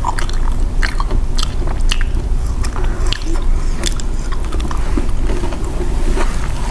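Close-miked chewing and biting of fried sweet potato balls, with scattered sharp mouth clicks and soft crunches.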